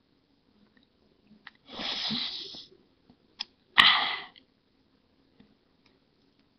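Two short breathy noises from a person, the second starting sharply and fading, with a small click between them.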